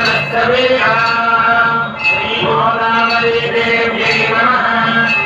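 A male voice singing a devotional chant with music accompaniment, in long held notes over a steady low drone.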